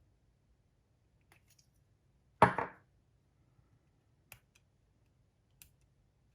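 One sharp knock on the workbench about two and a half seconds in, with a few faint clicks of small parts and tools being handled around it.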